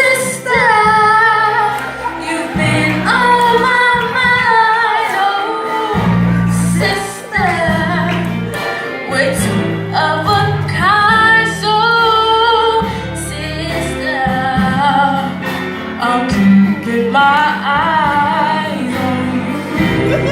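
Music: a woman singing a melody over instrumental accompaniment with a steady low bass line.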